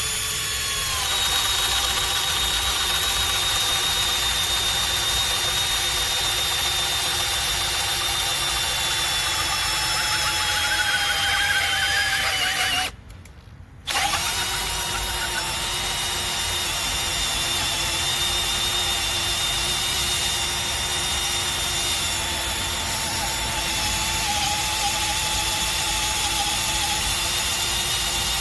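Makita XPH07 18V brushless hammer drill on speed 1 boring into oak with a 1-inch spade bit: a steady motor whine whose pitch sags slowly under the load. It stops for about a second partway through, then runs on steadily.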